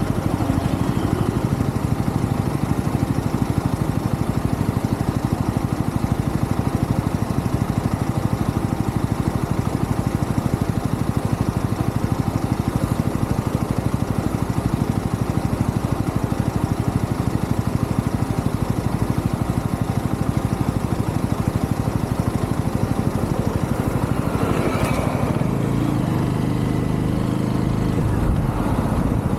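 UM Renegade Commando 125 motorcycle engine running steadily under way, with wind rush on the handlebar-mounted microphone; the sound changes briefly near the end.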